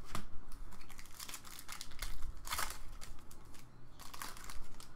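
Upper Deck Champ's hockey trading cards being shuffled through by hand: card stock sliding and flicking against card in a series of short, irregular rustles.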